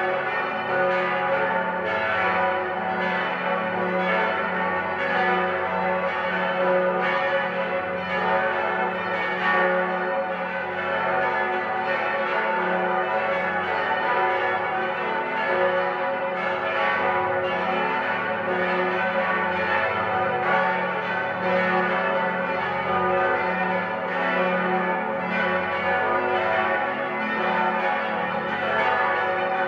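Eight church bells of St. Ottilien Archabbey ringing together in full peal, tuned to F♯, A, C♯, E, F♯, G♯, A and B. Their strikes overlap continuously in a dense, steady wash of tones.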